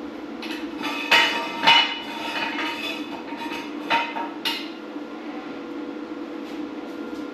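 Metal clanks and clinks of tools and parts being handled on a three-wheeler, with two loud ones about a second in and two more around four seconds. A steady low hum runs underneath.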